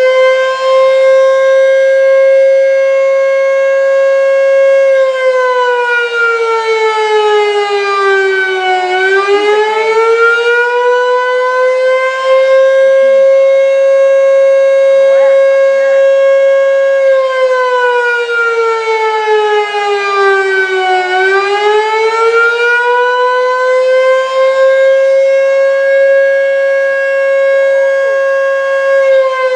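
A Federal Electric Fedelcode Model 5 12-port civil defense siren wailing during a test. Its pitch holds high for several seconds, slides down and climbs back up twice, and starts another fall near the end.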